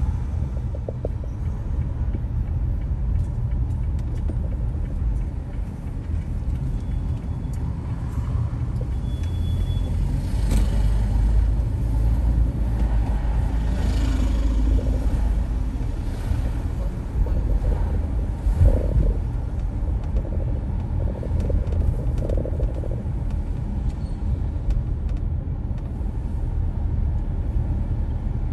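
Low, steady rumble of a car driving through city streets: engine and road noise, swelling now and then as traffic passes. A short knock comes about two-thirds of the way through.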